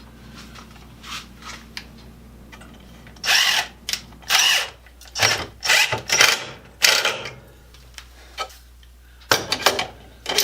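Power driver running in a series of short bursts, driving a deck screw into wood. A low steady hum sits underneath.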